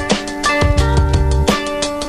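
Instrumental background music with a steady drum beat, held melodic notes and a heavy bass line.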